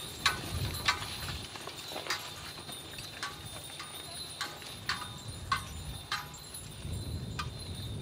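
A pair of heavy horses pulling a horse-drawn plough: sharp metallic clinks from the harness and plough about every half second as the team walks, over a low rumble.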